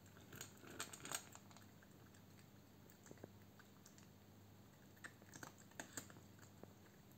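A cat crunching dry kibble from a stainless steel bowl: short clicky crunches in two bursts, around the first second and again about five to six seconds in, over a faint steady low hum.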